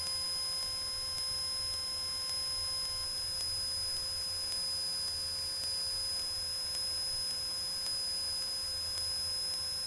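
Steady electrical hum and a thin high whine in a light aircraft's intercom and radio audio feed, with a low hum underneath; no transmission is being made.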